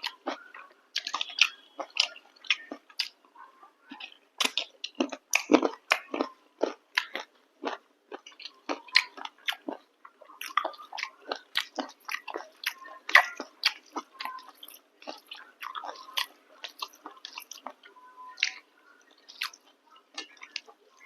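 A person eating chicken curry with chapati close to the microphone, biting and chewing: a steady stream of irregular mouth smacks and clicks, with some crunching.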